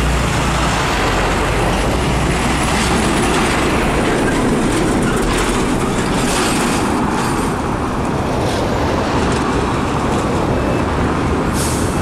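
Heavy diesel trucks passing close by, their engines running and tyres rumbling on the road: a loud, steady traffic noise.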